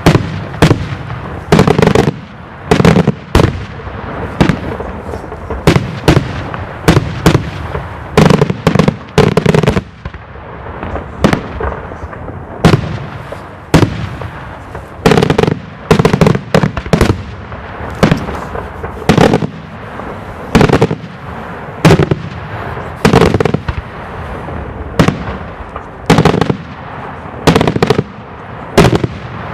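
Daylight fireworks display: a long, rapid series of loud aerial bombs bursting, the bangs coming about one or two a second and often in quick pairs or clusters, over a steady background rumble.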